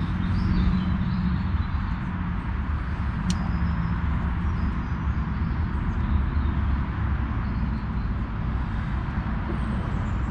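Steady road traffic noise from a nearby dual carriageway: a constant rumble of cars going past, with one sharp click about three seconds in.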